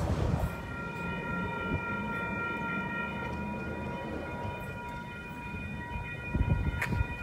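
Electric passenger train at the station: a steady high whine of several pitches together over low rumble, the rumble growing louder near the end.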